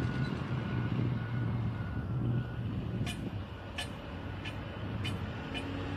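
Diesel engines of earthmoving machinery and trucks running steadily, with a reversing alarm beeping about twice a second that stops about halfway through. Then five sharp knocks follow, about two-thirds of a second apart.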